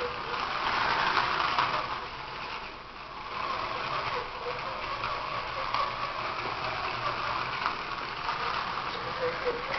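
Steady rushing, churning water from a model boat's Voith Schneider propellers, louder about a second in and easing briefly near three seconds, with a faint wavering whine underneath.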